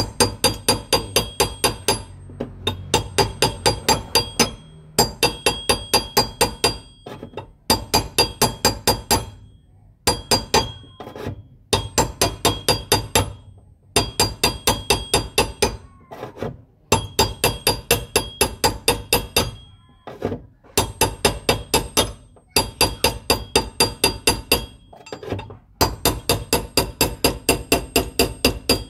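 Hammer tapping a punch against a fuel pump's lock ring to turn it tight, in quick runs of about six ringing metallic strikes a second with short pauses between runs.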